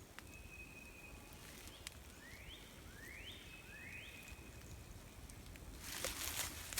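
A bird whistling faintly: a held note, then three quick rising whistles about a second apart. Rustling noise comes up near the end.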